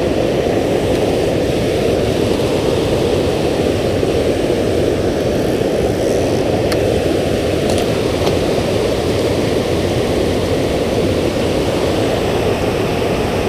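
Steady rushing of water pouring over a dam spillway, a dense even roar weighted to the low end, with a few faint ticks about seven to eight seconds in.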